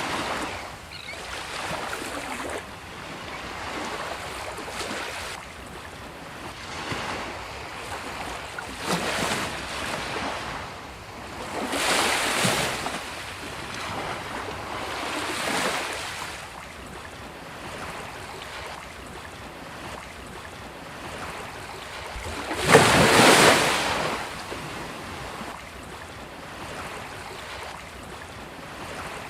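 Sea waves breaking on a beach: surf hissing and washing, swelling and fading every few seconds, with one much louder wave crashing about three-quarters of the way through.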